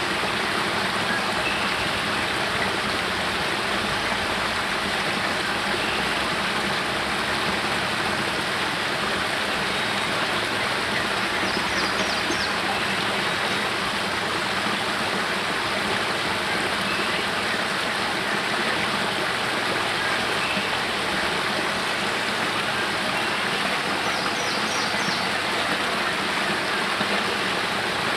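Spring water cascading over rocks from a cave mouth in a small waterfall into a pool: a steady, even splashing.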